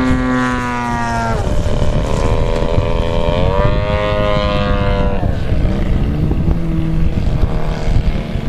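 Gas engines of radio-controlled aerobatic model airplanes in flight, their propeller note changing pitch: dropping about a second in, rising again around three and a half seconds, and falling away near the middle, fainter after that.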